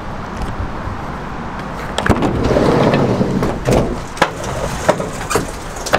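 Motocross bike being pushed by hand toward a van and onto its metal loading ramp: rolling and scuffing noise that swells about two seconds in, then several sharp knocks and clunks.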